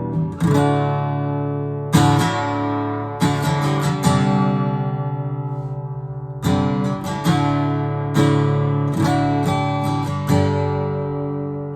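Gibson SJ (Southern Jumbo) flat-top acoustic guitar from the 1930s–40s being strummed: about nine chords, each struck and left to ring, the last one ringing out near the end.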